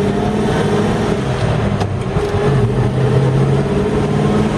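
Holden Kingswood's 253 V8 running on the road, its engine note dipping a little about halfway through and then climbing again. It runs smoothly with freshly set ignition timing.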